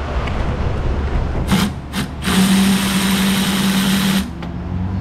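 Cordless electric ratchet backing out a fan shroud bolt: two short blips, then a steady whir of about two seconds that stops abruptly, over a steady fan hum.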